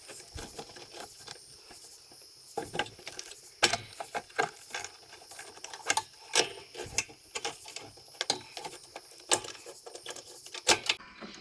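Irregular clicks, light knocks and scraping as a new drive control cable is fed down through the metal frame of a Toro Grandstand mower.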